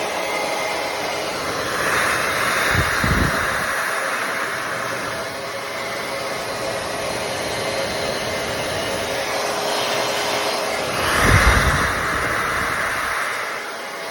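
Alledge hot air brush (blow-dryer brush) running, a steady rush of blown air with a motor hum. Twice the rush swells louder, with a short low rumble each time.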